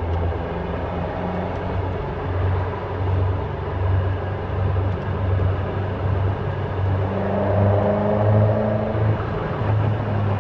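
Caterham Super Seven 1600's engine and exhaust running steadily with a deep pulsing rumble; a higher tone joins for a couple of seconds about seven seconds in.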